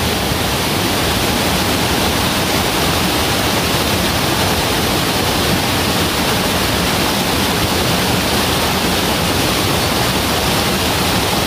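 Rushing water of a rocky mountain stream, a steady, unbroken rush.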